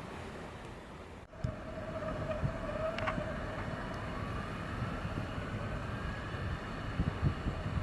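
A vehicle running past with a steady low rumble and a faint whine that slowly rises in pitch. The sound drops out briefly about a second in and comes back louder.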